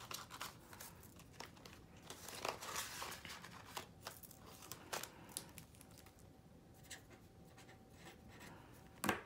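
Faint rustling and crinkling of paper banknotes and clear plastic zipper envelopes being handled in a cash budget binder, with scattered light clicks and a sharper click near the end.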